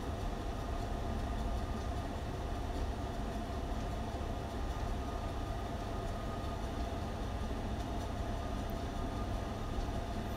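Steady background machine hum: a low, even rumble with a couple of faint steady tones above it, unchanging throughout.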